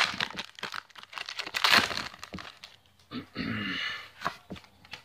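Foil Pokémon TCG booster pack wrapper crinkling and being torn open, with a dense burst of crackling about a second and a half in and scattered rustles as the cards come out.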